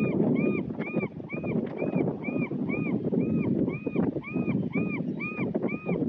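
Strong wind on the microphone and surf, with a steady series of short high chirps over them, each rising then falling in pitch, about two a second, starting suddenly.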